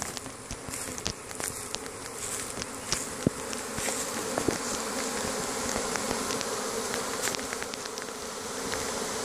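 Honeybee swarm buzzing steadily on and around a hive box, growing louder about four seconds in and then holding steady. A few light ticks sound in the first few seconds.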